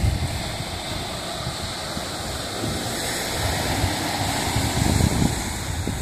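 Black Sea surf washing onto a sandy beach, a steady rushing noise, with wind buffeting the microphone in low gusts, strongest about five seconds in.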